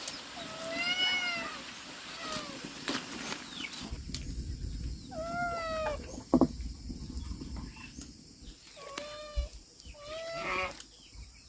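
An animal's short pitched cries, repeated about five times, each rising then falling in pitch, with a few sharp knocks in between.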